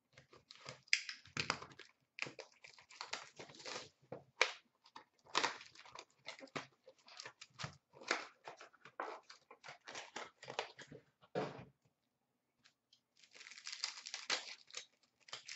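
Foil trading-card packs and their cardboard inner box being handled and opened: irregular crinkling and rustling with sharp crackles, a short pause about twelve seconds in, then a denser stretch of crinkling near the end.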